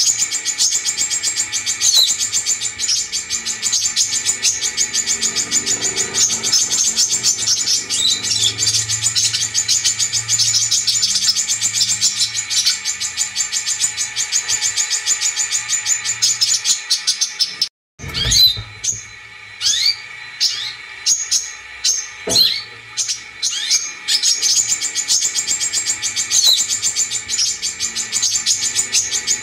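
Brown-throated sunbird song: a long, fast, high chattering trill with sharp rising chirps woven in. It breaks off abruptly about 18 s in, then comes back as separate sharp upward chirps before the fast trill resumes near the end.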